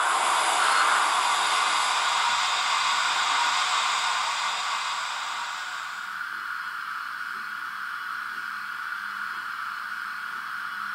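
Steady steam hiss from a model BR 10 steam locomotive's sound decoder, the engine standing still; it drops to a softer hiss about six seconds in.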